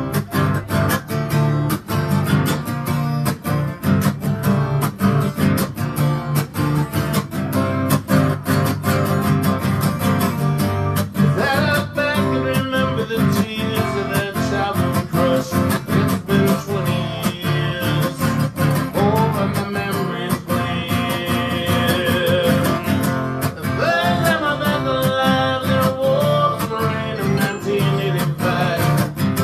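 Acoustic guitar strummed in a steady rhythm. A man's singing voice comes in over it about a third of the way through.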